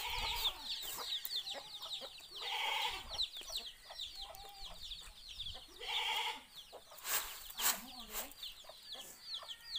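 Chickens in the yard: chicks peep quickly and constantly, with a few lower clucking calls. A couple of sharp clicks come about seven seconds in.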